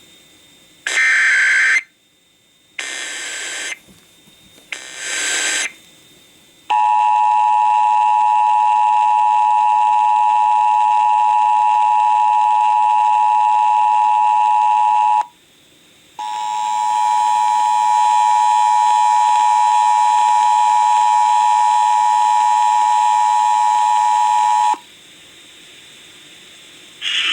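Emergency Alert System tones received over a radio: three short bursts of the SAME digital header data, then the steady two-tone attention signal. The attention signal drops out for about a second partway through, then resumes and cuts off.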